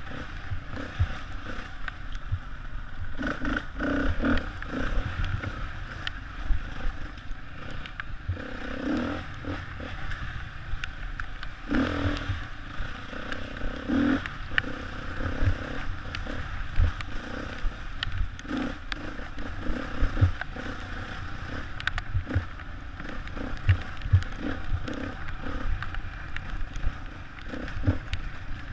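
Enduro dirt bike engine running hard on a forest trail, its note swelling and dropping with the throttle. Frequent knocks and clatter come from the bike bouncing over roots and rocks.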